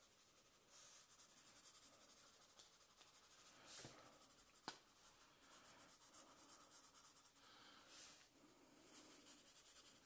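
Faint scratching of a light gray felt-tip marker stroking back and forth across drawing paper, with a few slightly louder strokes and a single sharp click about halfway through.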